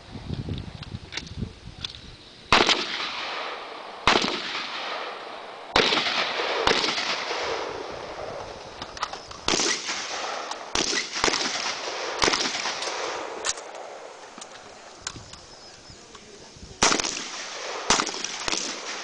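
Single rifle shots from an AR-pattern military carbine, about a dozen fired at irregular intervals of one to two seconds, each a sharp crack followed by a long echo across the range. Fainter clicks between the main shots.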